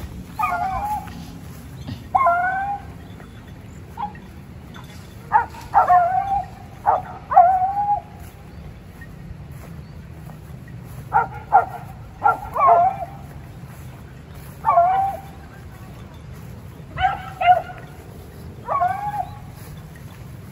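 Hunting beagles baying in pursuit: short yelping cries, one to three at a time, repeated in irregular bursts every few seconds. The hounds are giving tongue on the trail of a mongoose they have flushed.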